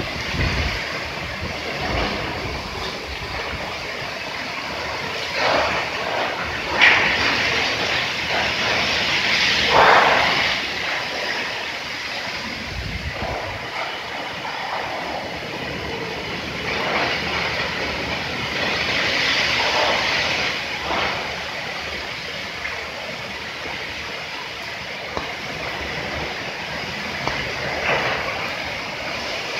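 Strong wind blowing in gusts: a steady rushing that swells and eases every few seconds, with the strongest surges about a quarter and a third of the way in, and some low rumble of wind on the microphone.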